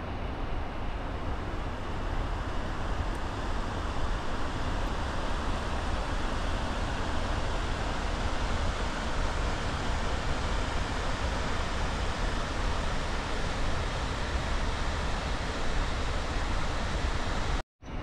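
Fast mountain river rushing over rapids: a steady, even rush of water. The sound cuts out for a moment near the end.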